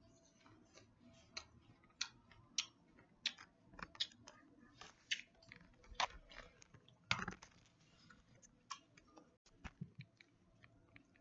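A person biting into and chewing a raw apple close to the microphone: irregular crisp crunches, the loudest about seven seconds in.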